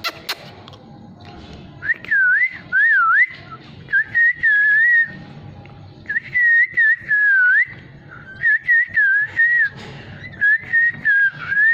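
Ringneck parrot whistling and warbling at itself, in five short phrases of swooping up-and-down notes with brief pauses between them. A couple of sharp clicks come at the very start.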